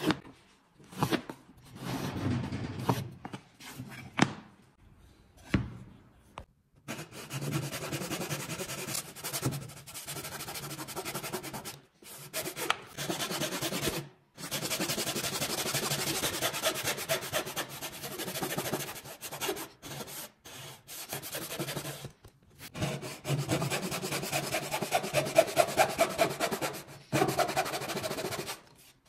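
Hand-tool work on pine wood: a few separate knocks in the first seconds, then long runs of quick rasping strokes on the wood, broken by short pauses.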